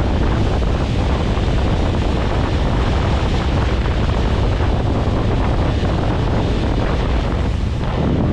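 Steady wind buffeting the microphone aboard a moving motorboat, with the boat's engine and water noise underneath.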